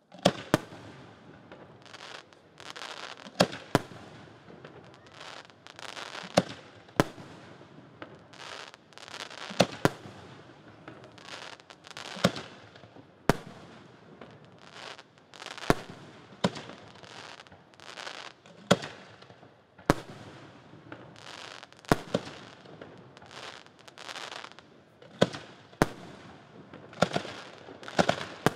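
Aerial firework shells bursting in a display, with sharp bangs every second or two and a hissing crackle between them.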